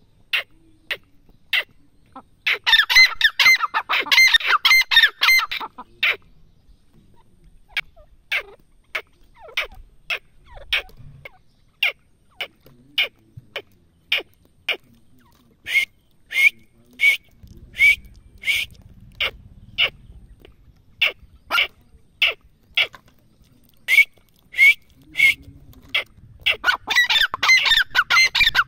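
Grey francolin (teetar) calling: sharp single calls repeated about once a second, broken by two runs of rapid, loud calls, one a few seconds in and one near the end.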